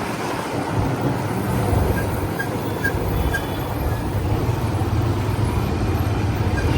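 Steady road noise from a moving motor vehicle: a low engine rumble with traffic noise around it.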